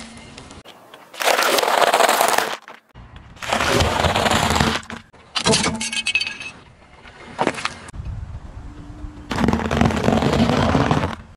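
A car tyre rolling over and crushing a series of brittle things: a wrapped candy bar, a hard plastic piece that cracks apart, and a row of dry rusks crunching. There are four or five separate bursts of crackling and crunching, each a second or so long.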